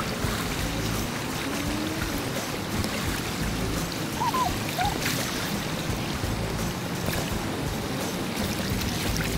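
River current rushing steadily over a shallow run.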